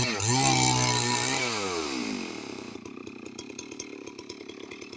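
Stihl MS 382 two-stroke chainsaw revving, held at high speed for about a second, then the throttle is released and the engine winds down to a low, pulsing idle.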